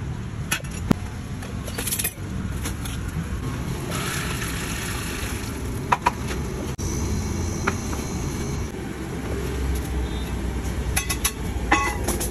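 Steady street-traffic rumble with sharp metal clinks of ladles against pots and kadhai, several in quick succession near the end.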